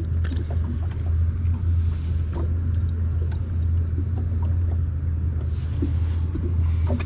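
Steady low rumble of a small boat's outboard motor idling, with a few light clicks from fishing tackle being handled.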